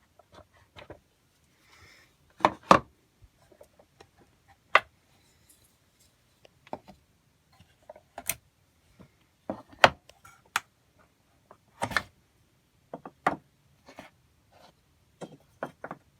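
Pinewood toy train parts clacking and knocking as the dowel-jointed pieces are pulled apart and set down: irregular sharp knocks, the loudest about three seconds in, near ten seconds and near twelve seconds.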